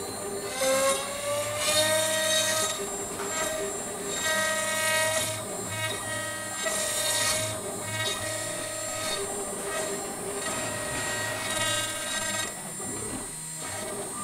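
DIY CNC router cutting into a wooden board: the spindle runs with a steady high whine while the machine's drive motors sing at pitches that shift as the head moves, one rising about a second in, over repeated bursts of cutting noise.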